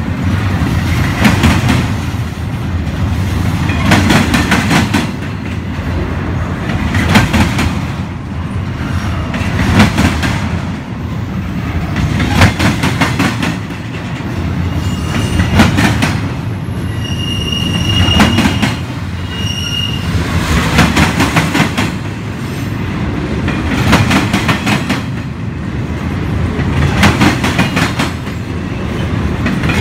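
Double-stack container train's well cars rolling past: a steady low rumble with clickety-clack from the wheels coming in groups about every three seconds. A few brief high wheel squeals about halfway through.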